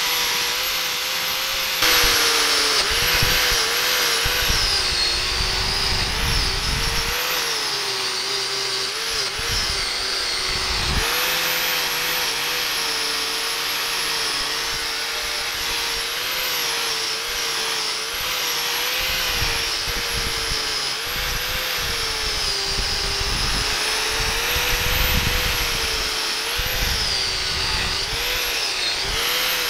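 Electric angle grinder with an abrasive disc grinding the steel of an 18-inch Bahco adjustable wrench held in a vise. The motor's whine keeps dipping and recovering in pitch as the disc is pressed onto the metal and eased off, over a continuous grinding hiss.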